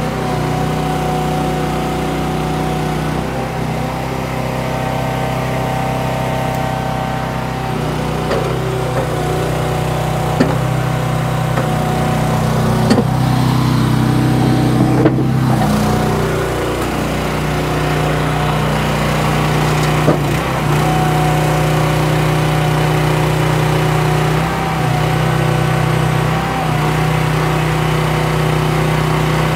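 An engine running steadily, its note shifting now and then as the load changes, with a few sharp knocks.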